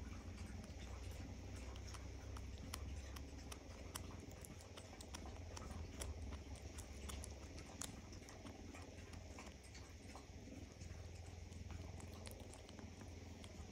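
Kitten gnawing raw meat off a bone: irregular small clicking and crunching chews, over a steady low hum.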